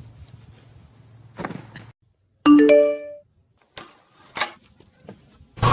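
A short bell-like chime, several tones sounding together and ringing out for under a second. Two sharp clicks follow.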